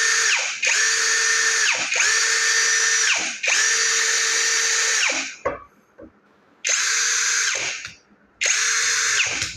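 Cordless battery drill run in six short bursts, trigger squeezed and released: a steady high motor whine at full speed that winds down in falling pitch each time it is let go, with a longer pause about halfway through.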